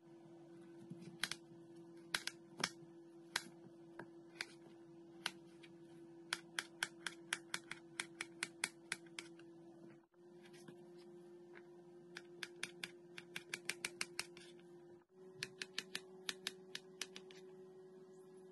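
Quick runs of sharp clicks, up to about five a second, from cutting during kitchen food preparation, over a steady low hum. The sound drops out briefly twice.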